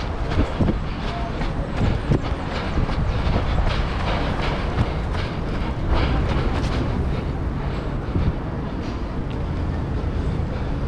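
A runner's footfalls, a few thuds a second, picked up by a camera carried on the run, over a steady low rumble of wind and street traffic.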